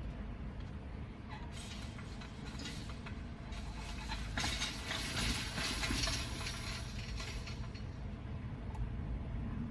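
Car interior road and engine rumble while driving. A louder rushing hiss swells in for several seconds in the middle and fades out near the end.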